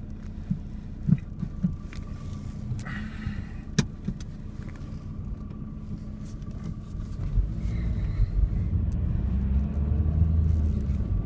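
Car cabin noise while driving: a steady low engine and road rumble that grows louder about two-thirds of the way through, with a few sharp clicks in the first few seconds.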